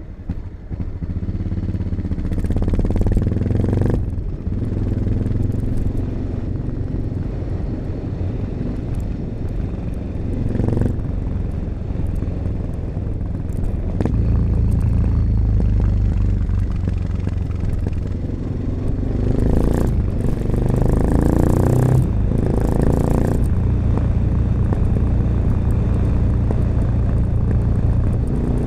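1986 Honda XL600RM single-cylinder four-stroke engine through an XRacing aftermarket exhaust with dB killer, riding under load. It revs up and eases off several times, the pitch climbing in pulls a few seconds into the ride, around the middle and again about two-thirds of the way in.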